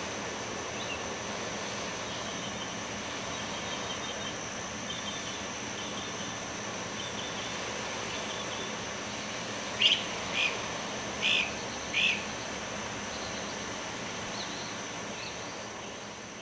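Outdoor bird ambience: small birds chirp faintly over a steady rushing background and a thin, steady high whine, and four louder, short bird calls come about ten to twelve seconds in.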